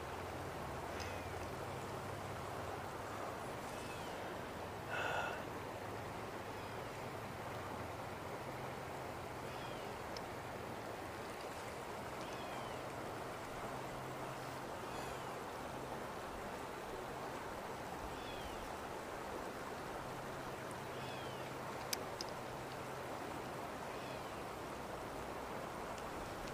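The White River flowing steadily. Over it a short high chirp repeats every two seconds or so, with a louder brief call about five seconds in and a single sharp click near the end.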